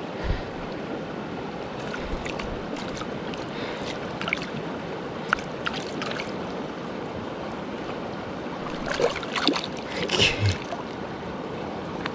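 Steady rush of a mountain creek flowing over rocks, with a few short clicks and knocks over it and a denser cluster of them about nine to ten and a half seconds in.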